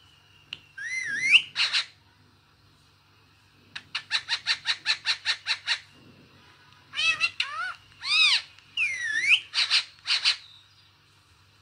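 Green parakeet calling with whistled, swooping screeches. About four seconds in comes a quick, even run of about a dozen short calls. A cluster of calls that glide up and down follows, with a faint steady low hum underneath.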